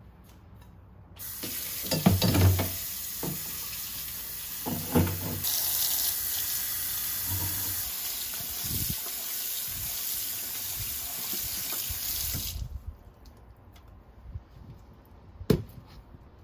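Kitchen tap running into a sink, with a few dull knocks as things are handled under the stream, then shut off abruptly; a single sharp click follows near the end.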